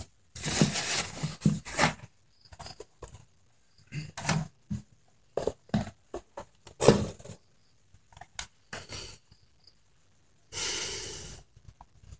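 Cardboard box and paper packaging being handled: a run of short rustles, scrapes and light knocks, with one longer rustle about ten and a half seconds in.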